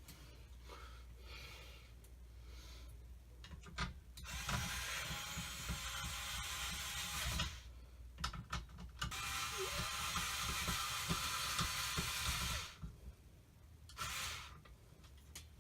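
A screwdriver driving in the screws that fasten the ceiling fan blades, in two runs of about three seconds each, with clicks and knocks between and around them.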